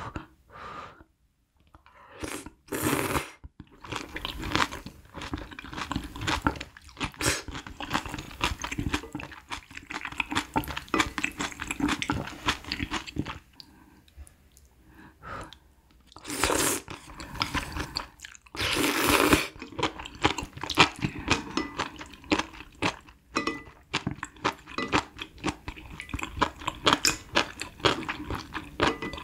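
A person eating malatang noodles close to the microphone: steady wet chewing and crunching, broken by three longer slurps, one near the start and two a little past the middle.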